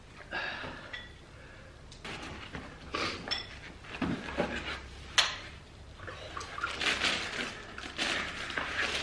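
Knocks and scrapes of a cardboard shoebox being handled and its lid opened, with one sharp tap about five seconds in. Near the end, tissue paper rustles as it is pulled back inside the box.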